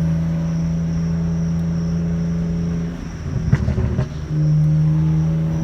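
BMW 335's straight-six exhaust holding a steady drone, broken about three seconds in by roughly a second of irregular crackling and popping, after which the steady drone returns.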